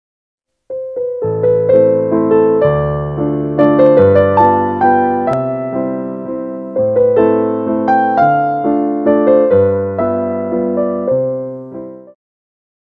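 Background piano music: a melody over bass notes, starting under a second in and fading out shortly before the end.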